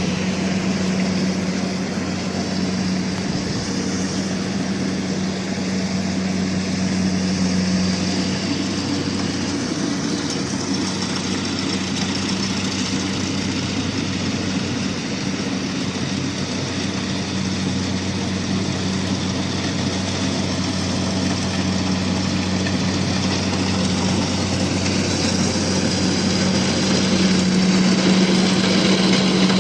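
Rice harvester running steadily: a constant engine drone with a dense mechanical noise over it, growing a little louder near the end.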